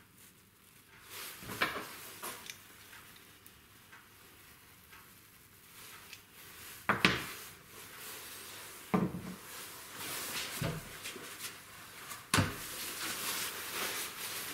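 Handling noise of small plywood star knobs with metal screws and washers: a few sharp knocks and clicks as the parts are fitted together and set down on a wooden workbench, with paper-towel rustling over the last few seconds.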